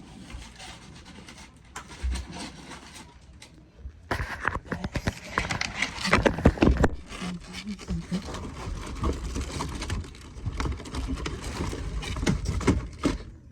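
Rustling, crackling and knocking of firework packaging being handled, starting about four seconds in.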